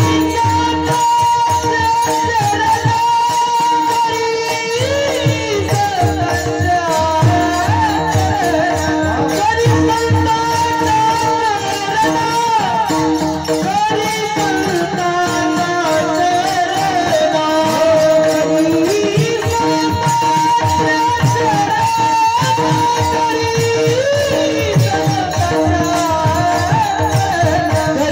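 Marathi devotional kirtan singing: a solo voice carrying a gliding, ornamented bhajan melody with long held notes, over a steady drone and frequent drum strokes.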